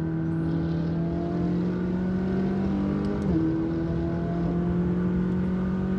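McLaren twin-turbo V8 running under way, its pitch creeping up, then a quick dip about three seconds in, typical of a gear change, before it holds steady.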